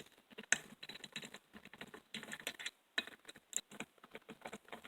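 Irregular light clicks and taps of small engine parts being handled as a two-stroke trimmer engine's intake piece is taken off to reach a gasket.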